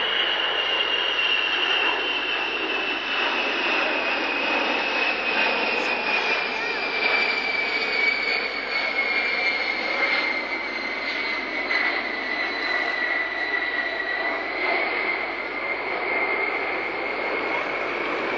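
Boeing B-52 Stratofortress's eight jet engines running in a low flyby: a steady rush of jet noise with a high whine that slowly falls in pitch.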